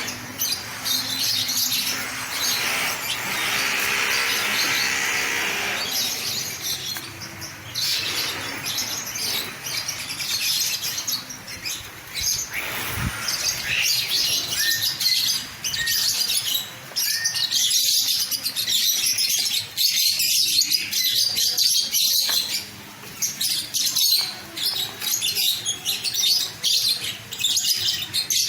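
A flock of about fifty caged lovebirds chattering with dense, continuous high-pitched chirps. A low steady drone sits underneath in the first few seconds.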